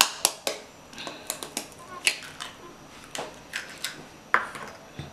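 Eggshell cracked with a table knife: three sharp taps a quarter second apart, then scattered small clicks and knocks as the shell is broken open over a china plate.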